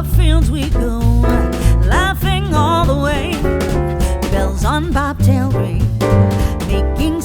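Background music: a song with a singing voice over a steady drum beat and bass.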